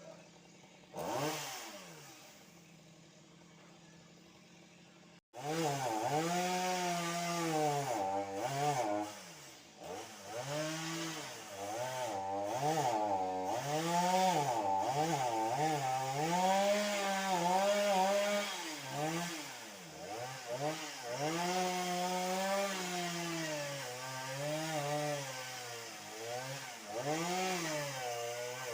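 Chainsaw idling, with one quick rev about a second in. After a sudden break it runs at high speed cutting into wood, the engine note rising and dipping again and again as the chain bogs under load.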